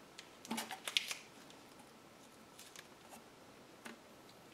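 Quiet handling noise: a cluster of light clicks and rustles about half a second to a second in, then a few scattered soft ticks.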